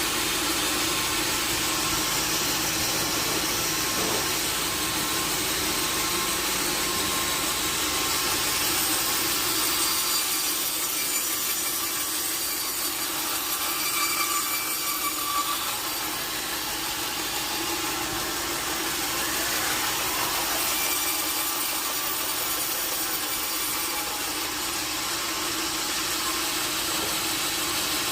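Sawmill saw cutting lengthwise through a large log: a steady hiss of the blade in the wood over a constant machine hum.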